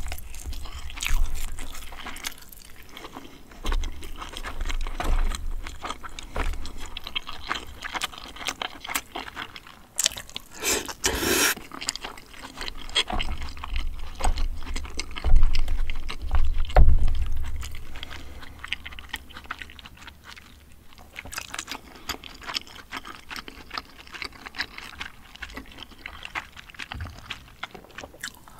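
Close-miked eating sounds: wooden chopsticks clicking and scraping against a plastic takeout container while picking up pieces of braised chicken, and chewing. The sounds come as many short, irregular clicks and smacks.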